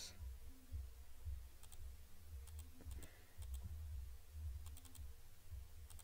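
Faint computer mouse clicks, coming in small quick groups of two or three, over a low steady background rumble.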